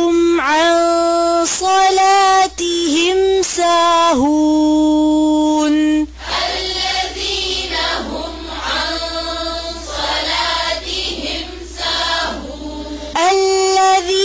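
Quranic verses chanted melodically in a high, clear voice with long held notes. From about six seconds in, a group of voices chants together, more softly, before the single high voice returns near the end.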